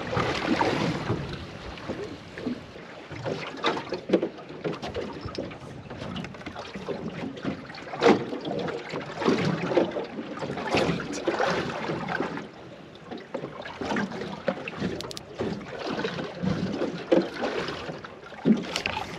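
Small aluminium boat drifting at sea: water slapping against the hull, with irregular knocks and wind on the microphone.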